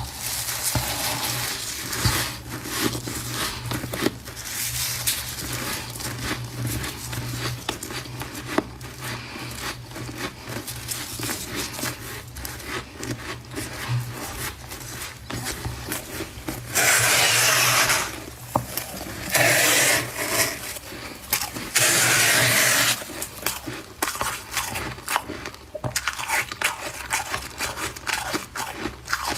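Humidifier frost being scraped and crunched as it is eaten: a steady run of small crackles and crunches, broken by three loud scraping stretches of about a second each in the second half.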